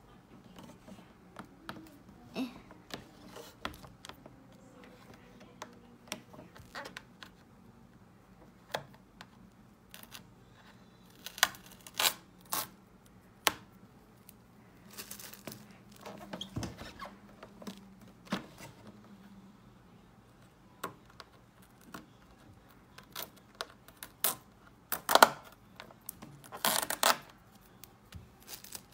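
Hands handling a plastic air fryer: scattered clicks, taps and knocks as its control buttons are pressed and the housing is gripped, rubbed and turned on the table. The louder knocks and scrapes come about midway and near the end.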